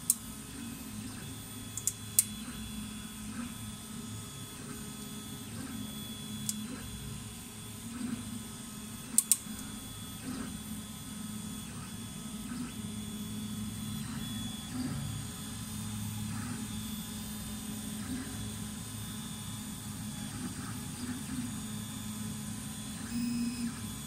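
Filament 3D printer running mid-print: a steady mechanical hum from its stepper motors and fans as the print head traverses the gantry, with a few sharp clicks in the first ten seconds.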